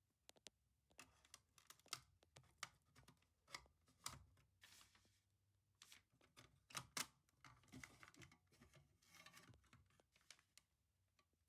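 Faint handling noises: irregular clicks, taps and short rustles, several a second, with no alarm tone.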